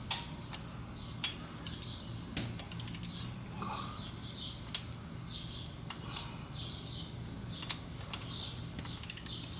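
Ratchet wrench clicking in short rapid runs, with single sharp clicks between them, as clutch bolts are tightened in stages following a torque sequence.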